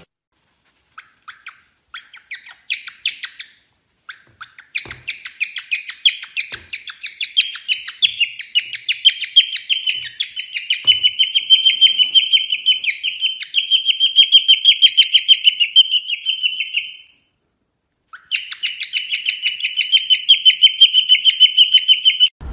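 Cockatiel chirping in fast, unbroken runs of high chirps that grow dense and loud after a few seconds. The chirping breaks off for about a second near the end, then resumes.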